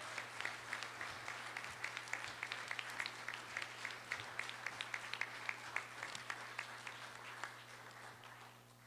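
An audience applauding, many hands clapping at once; the clapping thins out and stops near the end.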